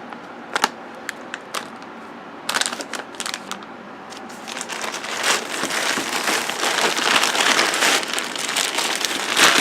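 Squishy packaging being handled and crinkling: scattered small crackles at first, then steady dense crinkling through the second half.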